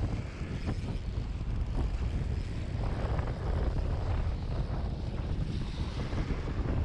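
Wind buffeting the microphone in a steady low rumble, with small waves washing over the shoreline underneath.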